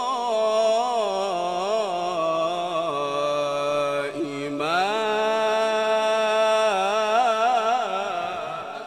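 A man reciting the Qur'an in the melodic, drawn-out mujawwad style. He holds long notes ornamented with quick turns, breaks briefly for breath about four seconds in, then glides up into a long held note that fades near the end.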